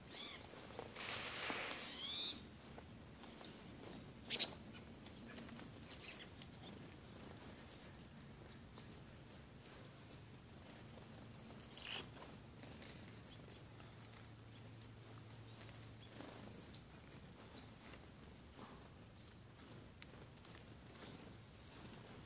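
Chickadees giving short, very high calls, scattered and faint throughout. A few sharp clicks or rustles come in between, the loudest about four seconds in.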